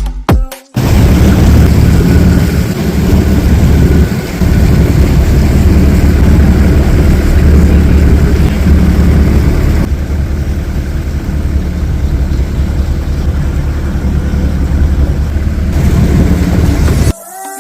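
Boat engine running steadily with a deep hum, heard aboard while underway; it starts and stops abruptly.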